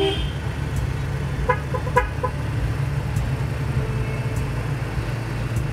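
Truck engines running with a steady low rumble, and a few faint short sounds about one and a half to two seconds in.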